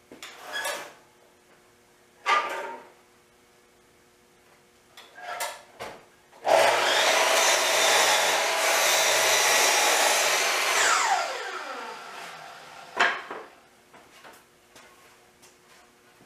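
A woodworking power machine runs for about four and a half seconds, then is switched off and winds down with a falling whine. A few wooden knocks from boards being handled come before it and one after.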